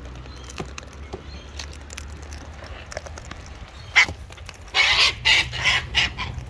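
Cockatoo giving a run of loud, harsh screeches about five seconds in, just after a sharp click; before that only faint clicks over a low hum.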